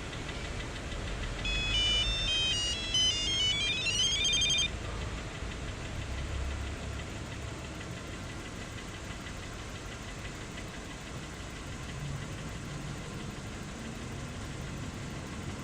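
Car engine running at idle with a knock, the knocking the video is about. About a second and a half in, an electronic chime plays a short melody of rising beeps for about three seconds over the engine.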